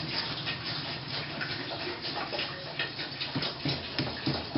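Long knife chopping into a whole jackfruit: a series of short, irregular strikes, more frequent in the second half, over a steady background hiss.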